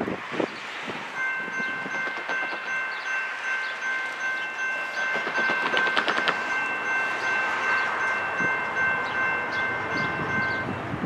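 Norfolk Southern GE ES44AC locomotive's air horn sounding several notes together as a chord, in one long blast of about nine seconds, starting about a second in and stopping near the end.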